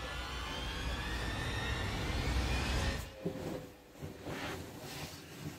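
A swelling, rising tension sound effect: several tones climb slowly in pitch over a low rumble and cut off suddenly about three seconds in. Soft rustling of bedding follows.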